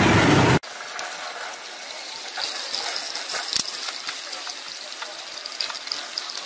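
Loud traffic noise cuts off abruptly about half a second in. Then oysters sizzle and crackle in their shells over a charcoal grill, with one sharp click a few seconds in.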